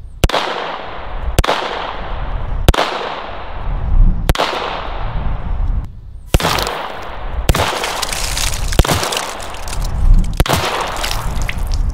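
About eight unhurried single shots from a VZ-61 Scorpion in .380 ACP, spaced about one and a half seconds apart. Each crack trails off in a long echo.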